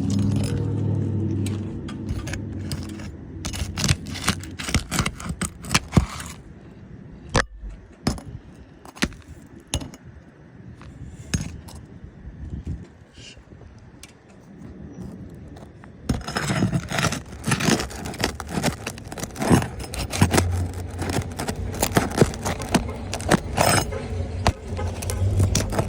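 Repeated scrapes, taps and metal clinks of hand tools working a damaged roof shingle loose, sparser for a stretch in the middle and busier toward the end. A low rumble sounds under it at the start and again later on.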